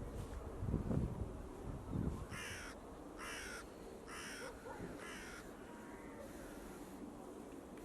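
A crow cawing four times, about once a second.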